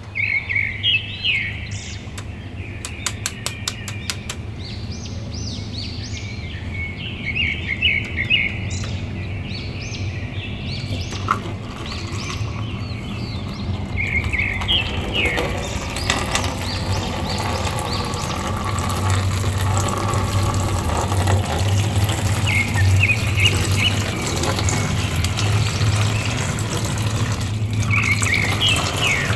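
Dyed water pouring out of a plastic bag into a plastic basin and splashing, with the plastic bag crinkling as hands open, handle and squeeze it; the pouring and splashing start about halfway through and are the loudest part. Small birds chirp in short bouts in the background.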